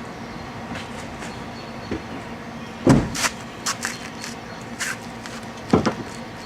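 Sharp metal clanks and knocks from working a car jack to raise the vehicle, a handful of them between about three and six seconds in, over a steady low hum.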